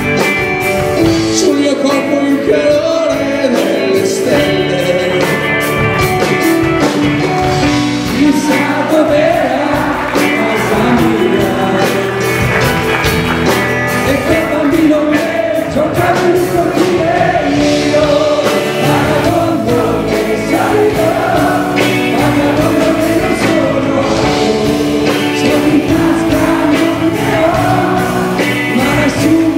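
A live band with keyboard and electric guitar playing a song with singing, the music steady and loud throughout.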